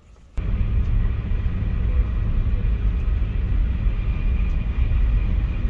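Passenger train running along the line, heard from inside the carriage: a steady, loud rumble that starts abruptly about half a second in.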